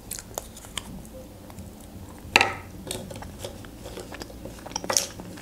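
Chocolate egg shell being bitten and chewed close to the microphone: scattered small clicks and crackles, with one louder crunch about two and a half seconds in.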